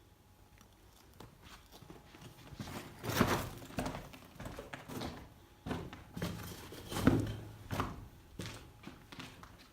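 Footsteps with knocks and thuds, an irregular run of impacts starting about two and a half seconds in, the loudest two near three and seven seconds in.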